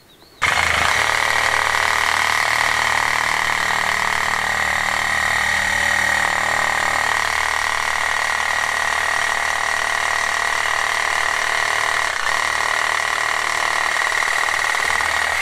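Cordless power saw running steadily with a high whine as it cuts through a length of hard almond wood. It starts about half a second in.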